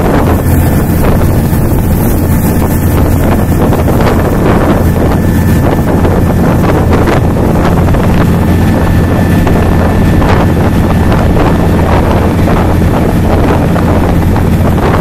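Motorboat engine running steadily under way, with water rushing past the hull and wind buffeting the microphone.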